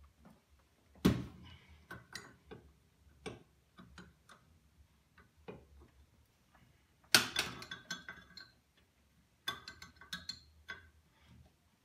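Metal wrench clicking and clinking against the steel brake line fittings at the master cylinder as they are worked loose, in irregular sharp clicks with two louder knocks, about a second in and about seven seconds in, and a quick run of clicks near the end.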